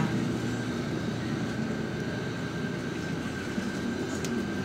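Steady engine and road noise inside a moving bus, with a faint, steady high whine.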